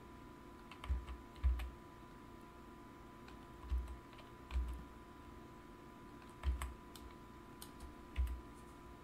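Computer keyboard keys and mouse buttons clicking now and then as Blender shortcuts are pressed, about six presses in all, each with a dull low thump, over a faint steady high hum.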